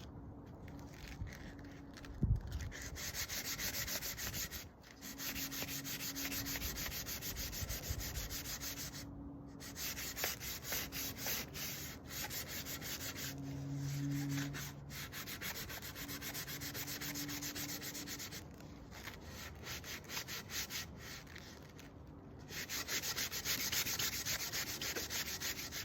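Sandpaper worked by hand over wood in rapid back-and-forth strokes, a steady scratchy rasp broken by a few short pauses. A single thump sounds about two seconds in.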